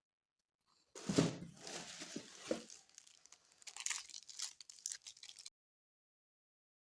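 Packaging being torn open and crinkled by hand: a loud tearing rustle with a few dull knocks about a second in, then lighter crinkling that cuts off abruptly.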